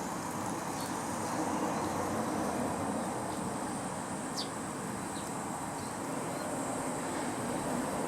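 Steady outdoor background hum like distant traffic, with a continuous high insect buzz and a few short bird chirps, most likely house sparrows at a water bath. The clearest chirp is a quick falling note about four seconds in.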